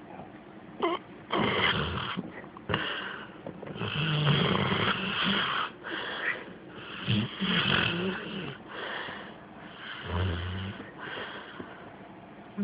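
Rottweiler–pit bull mix dog snoring in her sleep with her mouth slightly open: an irregular run of loud snores, each half a second to two seconds long with short pauses between. The owner says this snoring is lifelong and not a sign of any medical condition.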